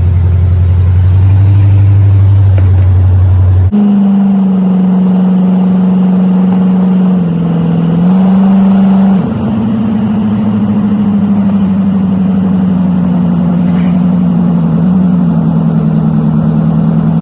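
Car engine of a 1988 Oldsmobile Cutlass running loud while driven, its exhaust pipes not yet fitted; a steady drone that steps up and down in pitch a few times as the speed changes. There is an abrupt jump in the sound about four seconds in.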